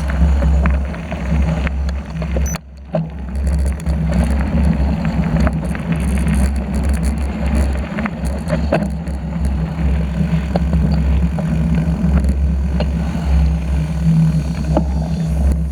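Wind rumbling on the microphone of a camera carried on a moving bicycle, with scattered clicks and rattles from the bike. The rumble drops out briefly about two and a half seconds in.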